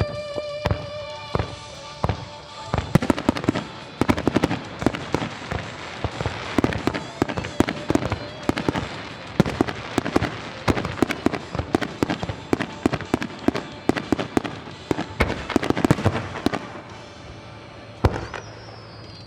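Rapid barrage of large aerial firework shells bursting over the sea, dozens of sharp booms and cracks in quick succession that thin out near the end, followed by a falling whistle. Show music fades out in the first second or two.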